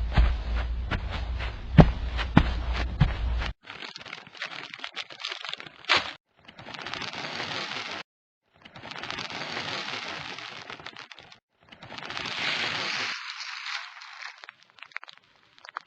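Sound effects: a run of sharp clicks and knocks over a low rumble for the first few seconds, then three separate bursts of crackling hiss, each about two seconds long with short gaps between.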